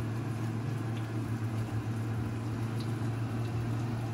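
Floured chicken pieces frying in a cast iron skillet, a steady sizzle of hot grease, over a constant low hum.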